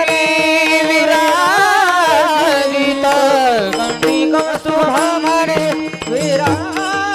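Devotional bhajan singing: a long, wavering vocal run without clear words over a steady accompanying drone. The held phrase bends up and down for the first three and a half seconds, then breaks into shorter notes, and a new phrase starts near the end.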